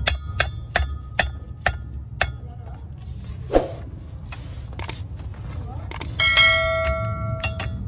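Sharp metallic clinks, two or three a second for the first couple of seconds, as the vehicle's propeller shaft is rocked at the cross joint and center bearing to find a rattle. Near the end a bell-like ding rings for about a second and a half, the notification-bell sound of a subscribe-button animation. A steady low rumble runs underneath.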